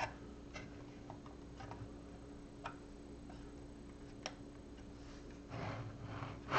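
Plastic LEGO pieces clicking and tapping as the model is handled, a few separate sharp clicks spaced a second or so apart, then a short rubbing, sliding sound near the end, over a faint steady hum.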